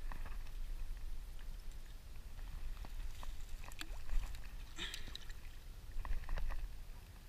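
Low wind rumble on the camera microphone, with scattered light clicks and rustles and soft water sounds as a caught chain pickerel is handled at the shallow water's edge; the louder rustling comes about five seconds in and again around six seconds.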